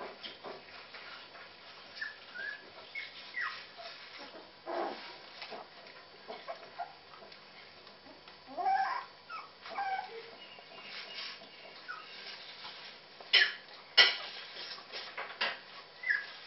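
Puppies whimpering and squeaking in short, high calls, with scattered small clicks and two sharp knocks a few seconds before the end.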